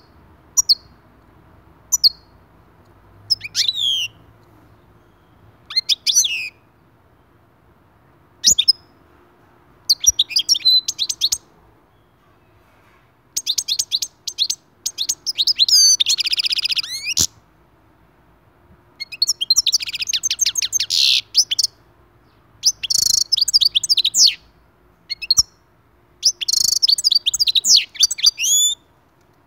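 European goldfinch singing. Short chirps come first, then longer runs of rapid, high twittering separated by brief pauses, with one drawn-out buzzy note about halfway through.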